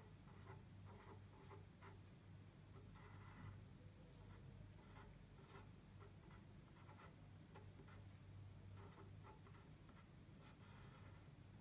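Pen writing numbers on paper: many short, faint scratching strokes, over a steady low hum.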